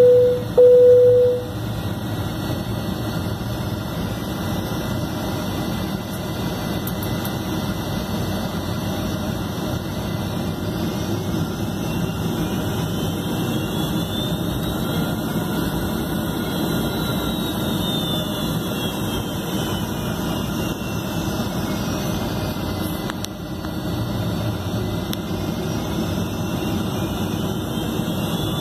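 Cabin noise of a Boeing 757 taxiing: a steady rumble and whine from its Rolls-Royce RB211 engines at taxi power, heard from a window seat beside the wing. Two short, loud, low beeps come right at the start. About halfway through, a faint high whine rises and then falls in pitch.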